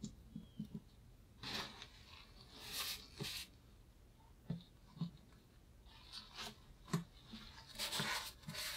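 Several short, quiet rustles and rubs of a sheet of printer paper being pressed down and handled with nitrile-gloved hands, with a few soft taps against the tabletop.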